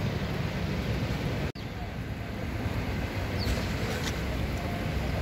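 Outdoor ambience dominated by a steady low rumble of wind on the microphone, with faint distant voices underneath. The sound cuts out for an instant about one and a half seconds in.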